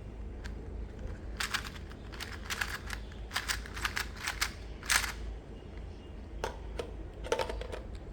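Sharp clicks and clacks from small plastic items being handled, in quick clusters from about a second and a half in to about five seconds, and a few more near the end.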